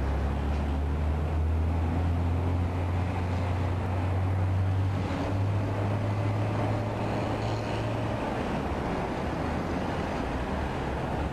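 A vehicle engine running with a steady low hum under a noisy rumble. The hum shifts slightly about five seconds in and fades back after about eight seconds.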